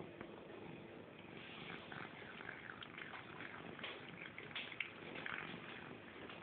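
A cat eating pieces of beef off a table: faint, irregular chewing and smacking.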